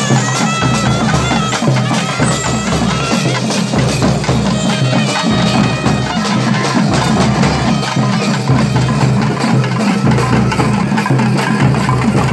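Loud traditional festival music: drums beating a steady rhythm under clattering percussion, with a high wavering melody line over it for the first few seconds.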